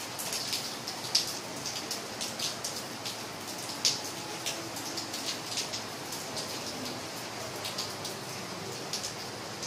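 Steady rain falling, with many close, distinct raindrop splats and drips rising above the even hiss of the downpour.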